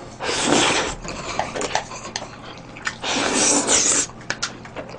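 A person slurping loudly while eating: a long slurp of broth from a bowl tipped to the mouth near the start, then a second long slurp of jjajangmyeon noodles about three seconds in. Between and after the slurps come wet chewing and smacking with small clicks.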